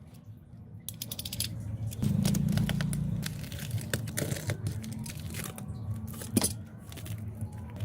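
Small hard parts of a broken phone being handled: a run of light clicks, taps and scrapes. A low hum comes in for about a second at around two seconds in, and a sharper click sounds a little after six seconds.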